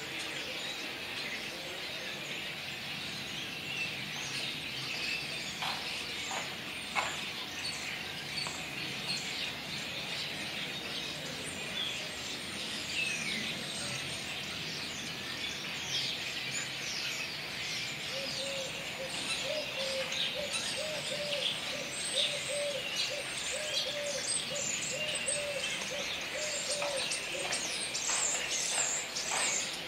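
Common starlings (Sturnus vulgaris) chattering: many overlapping chirps, clicks and whistles that grow busier in the second half. A lower, evenly repeated call joins in for several seconds past the middle.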